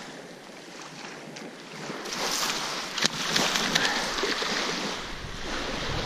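Small waves washing up on a shell-and-pebble beach, with crunches on the stones and wind on the microphone; the wash and crunching swell about two seconds in.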